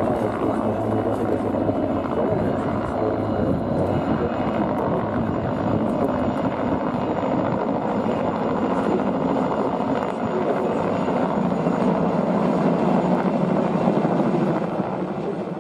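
A formation of four helicopters flying over, the steady noise of their rotors and engines.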